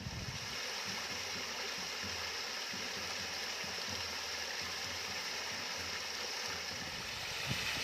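Water running steadily down a small man-made waterfall, an even splashing rush.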